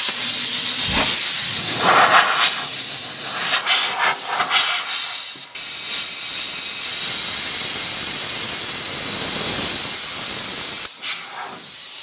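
Handheld plasma cutter cutting the sheet-steel cabinet of a coin change machine: a loud hiss that is uneven at first and then steady from about five and a half seconds in. It drops away about eleven seconds in, leaving a fainter hiss.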